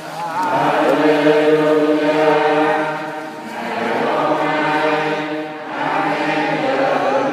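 A choir singing a slow sacred chant in long held phrases, with short breaks about three and a half and five and a half seconds in.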